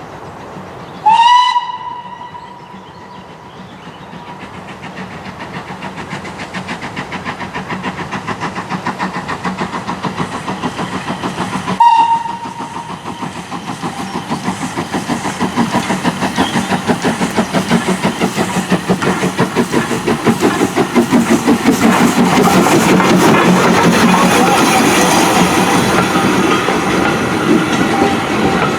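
NER H Class (LNER Y7) steam tank locomotive 1310 sounding its whistle about a second in and again briefly about halfway through. Its exhaust beats then grow louder as the train gets under way and comes closer, with the clatter of the wheels over the rail joints.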